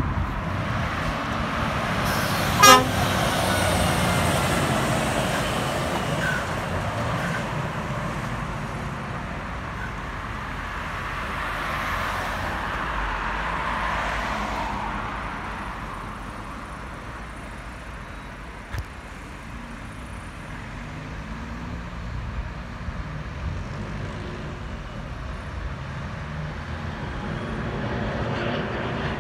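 Scania S650 truck: one short, loud horn toot about three seconds in, over the low rumble of its V8 engine. The engine and exhaust sound swells and fades again around twelve to fourteen seconds.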